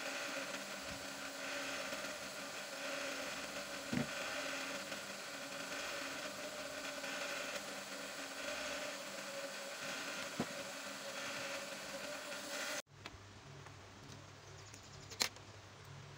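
A steady mechanical background hum with a few light taps from rubber sandal soles being handled on a workbench. About three-quarters through, the sound cuts off abruptly to a quieter background with one sharp click.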